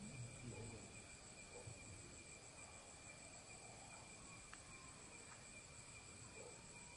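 Faint, steady chirring of crickets and other night insects, holding two even high tones.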